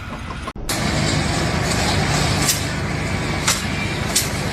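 A heavy engine running steadily with a low rumble, with a few short sharp clicks or knocks over it; the sound cuts out briefly about half a second in.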